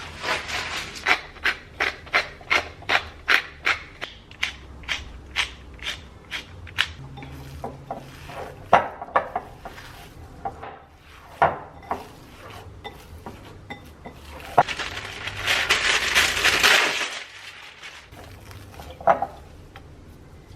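Kitchen food-prep sounds: a utensil strikes a wooden board in an even run of about three strokes a second, then irregular clicks and knocks of utensils and dishes. About 15 s in, a hiss swells for roughly two seconds.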